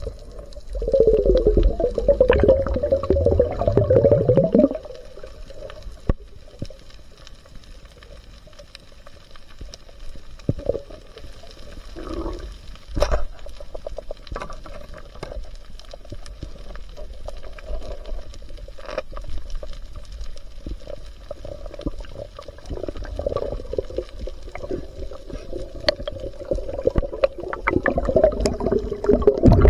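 Muffled water sound recorded underwater, bubbling and sloshing, loud in a stretch about a second in and again through the last several seconds. Scattered sharp clicks fall in between.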